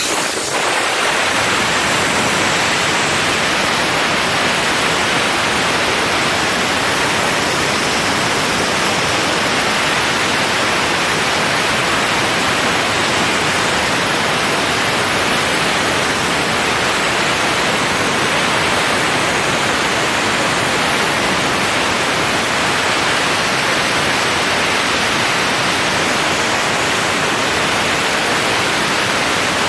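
Steam cleaner nozzle blowing a jet of steam onto a motorcycle windscreen: a loud, steady hiss, used to soften and lift the protective plastic film off the screen.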